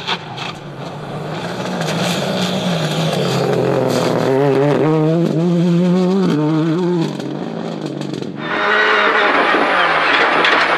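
Rally car engine heard from inside the cabin under hard acceleration, its pitch climbing, with a dip about seven seconds in like a gear change. Near the end a louder rush of tyre and road noise takes over.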